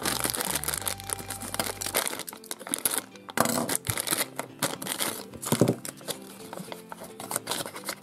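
Thin yellow wrapping paper crinkling and rustling as it is unwrapped by hand from a small toy figure. Soft background music underneath stops about two seconds in.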